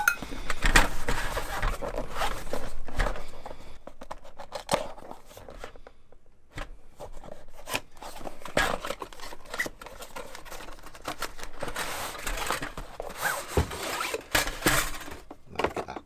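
Hands opening a cardboard product box: rustling, scraping and light knocks of cardboard as the box is turned and its flap pulled open, with the contents sliding out near the end.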